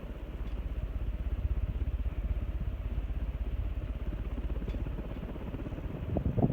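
1996 Hunter Second Century ceiling fan with an oil-bath motor running on high speed: a steady low rush of moving air with a fluttering rumble.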